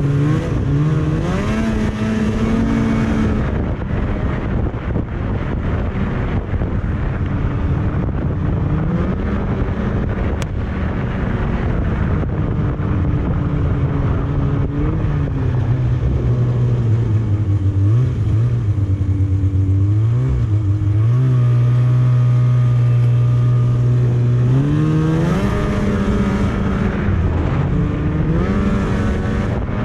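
Snowmobile engine running under way, its pitch climbing as the throttle opens about a second in and again near the end, and holding lower and steady for a stretch in between.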